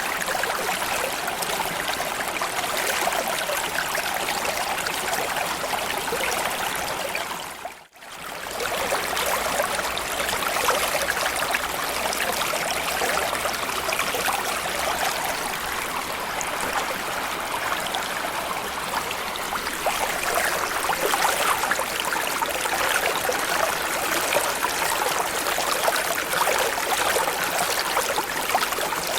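Small stream or creek flowing steadily, a continuous rush and trickle of water over stones. About eight seconds in it fades out almost to silence for a moment and comes straight back, as at the seam of a loop.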